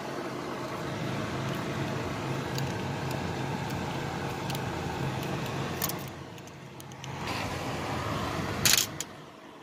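Hand-tool work on a T15 Torx screw: faint irregular metal clicks over a steady background hum, with a sharp metal clink near the end.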